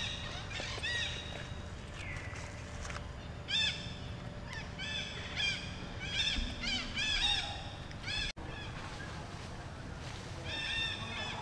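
Monkeys giving repeated short, high-pitched squealing calls, each rising then falling in pitch, in quick runs of several, over a steady low rumble.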